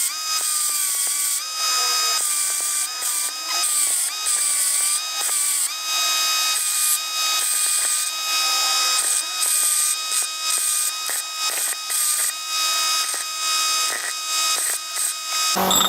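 A power tool's motor whining steadily while it works on metal. Its pitch sags slightly under load, and repeated bursts of gritty high hiss come in as the tool is pressed on and lifted off.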